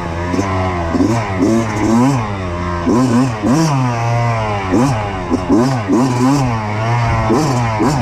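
2023 Kawasaki KX85's two-stroke single-cylinder engine being ridden hard, its pitch rising and falling over and over, about twice a second, as the throttle is worked.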